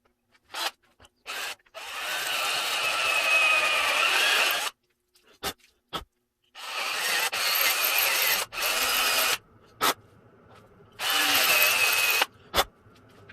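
Electric drill running in three longer bursts of a few seconds each, with brief blips between, as it is worked into a broken exhaust stud in a Nissan VG30ET cylinder head.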